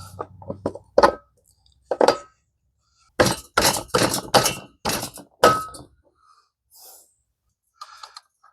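Sharp metallic knocks and clinks of a steel axle and spacers being worked through a mini bike's front fork and wheel hub: scattered light clicks, then about six strong, evenly spaced strikes with a brief metallic ring.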